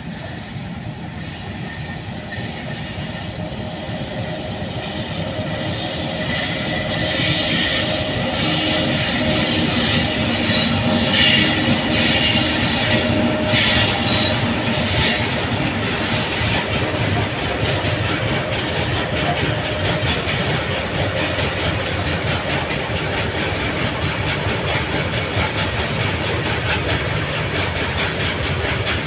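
Freight train hauled by a back-to-back pair of WAG-9HC electric locomotives passing: the sound builds as the locomotives approach and is loudest about ten to fifteen seconds in as they go by, then the long rake of open freight wagons rolls past steadily on the rails.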